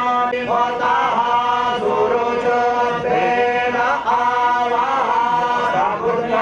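A man chanting Sanskrit puja mantras in a continuous melodic chant, with long held notes that bend slowly from one pitch to the next.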